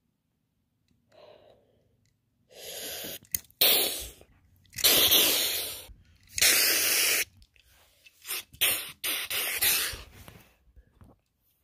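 Mouth-made crash sound effects for a toy car: about eight loud, hissing breath bursts, starting two or three seconds in, some short puffs and some lasting about a second.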